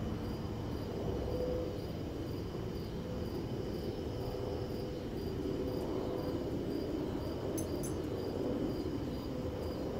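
Night ambience: a steady low rumble with a faint hum, and insects chirping in an even rhythm of about two to three chirps a second. Two faint clicks come a little past seven seconds in.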